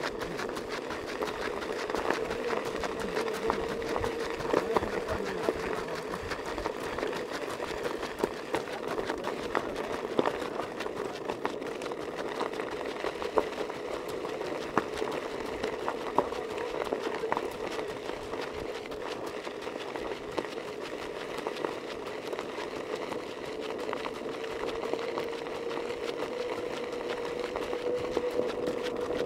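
A motor vehicle travelling at a steady speed: a continuous mid-pitched motor whine that drifts slightly in pitch, with scattered sharp clicks.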